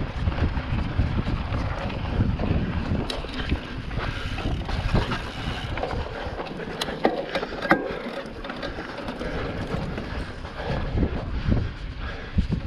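Wind rushing over an on-board camera's microphone and the rumble of a mountain bike riding over dirt trail, with a few sharp clicks and knocks around the middle.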